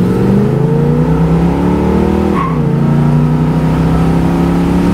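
1974 Pontiac Firebird Formula's SD-455 V8 at full throttle, heard from inside the cabin. The engine note climbs, drops sharply at an upshift about halfway through with a brief tire chirp, then climbs again more slowly.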